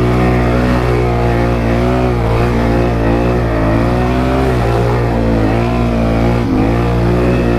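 ATV engine running under load, its pitch rising and falling as the throttle is worked.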